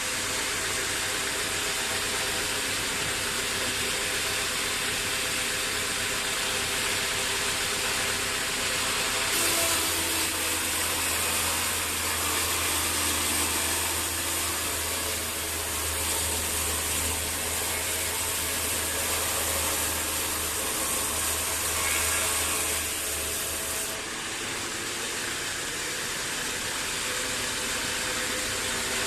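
Bandsaw sawmill running, with the blade cutting through a log from about a third of the way in until near the end: a louder hiss and a deeper hum during the cut, which drop away when it finishes.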